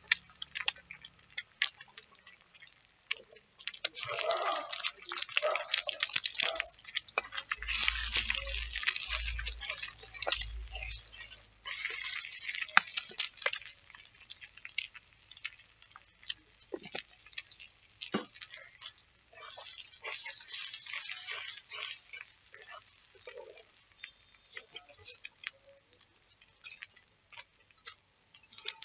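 Eggs frying in oil in a black kadai, with a crackling sizzle that swells and fades in several spells. A metal spatula scrapes and taps against the pan as the eggs are scrambled.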